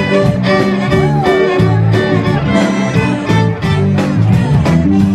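Live band playing an upbeat dance tune, the fiddle leading over a steady quick drum beat and bass.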